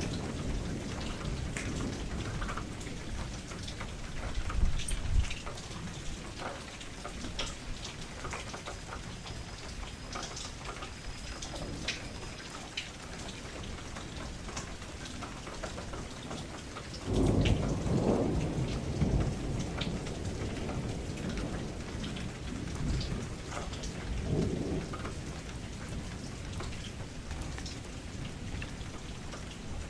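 Thunderstorm: steady rain falling with patters, and thunder rumbling, briefly about four seconds in, then louder and longer starting about seventeen seconds in, with a smaller rumble about seven seconds after that.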